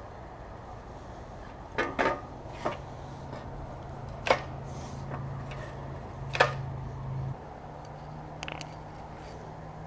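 Hands working on a lawnmower recoil starter: a few sharp clicks and taps of the parts being handled, the loudest about two, four and six seconds in, over a steady low hum.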